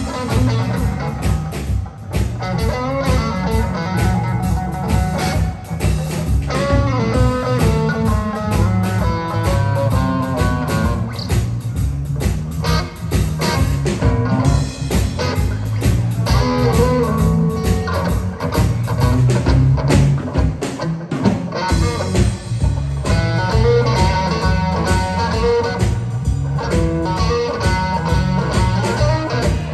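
A blues-rock trio playing: an electric guitar with a Stratocaster-style body plays a lead solo of bent notes over electric bass guitar and a drum kit with cymbals.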